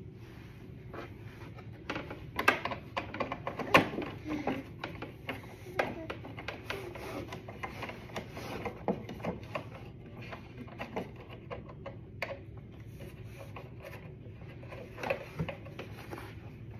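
Scattered light clicks, taps and knocks of hands and a screwdriver working on the parts of a toddler's table, over a low steady hum.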